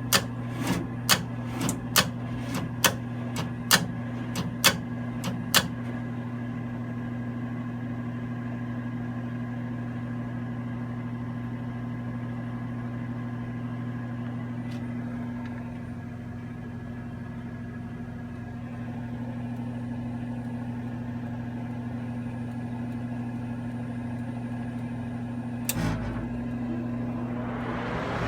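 Propane gas furnace starting up: a run of sharp clicks, about two a second, over a steady motor hum for the first six seconds, the start-up clicking that the owner finds oddly loud. The hum then runs on alone, with a short low thump near the end.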